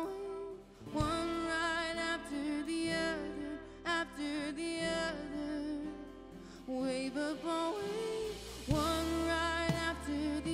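Worship music: a voice singing long, wavering held notes in phrases over a sustained accompaniment.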